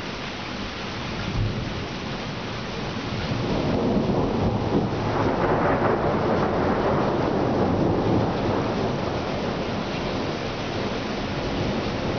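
Rain falling steadily through a thunderstorm, with a long roll of thunder that builds from about three seconds in, peaks midway and slowly dies away.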